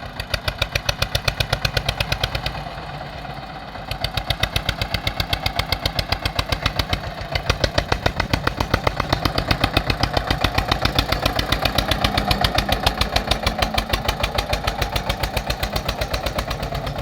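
Tractor engine running while ploughing, with a fast, even beat. It eases off for a moment a few seconds in, then picks up again and holds steady.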